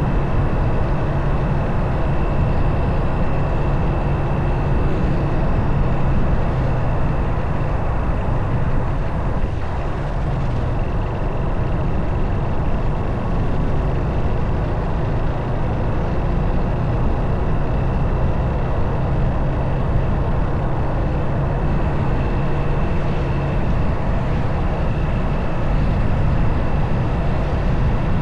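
Motorcycle running at a steady cruising speed, its engine note under steady wind and road noise on the microphone. A faint high whine runs over it and drops out briefly about ten seconds in.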